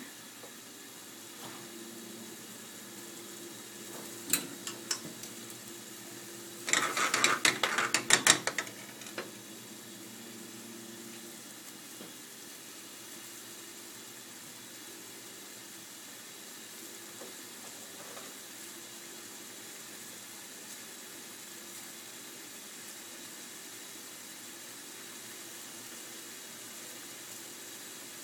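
Steady low hiss of a gas burner and prawn curry sauce simmering in a pan. A few sharp clicks about four seconds in, then about two seconds of dense clicking and rattling about seven seconds in, the loudest sound.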